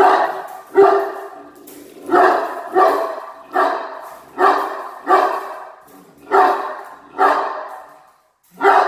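Dog barking over and over, about eleven barks at roughly one every three-quarters of a second, each trailing off in room echo: reactive barking at another dog's movement.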